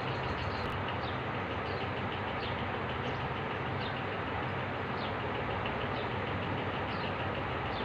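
Steady background hum and hiss, with a small bird chirping short, high, falling notes about once a second.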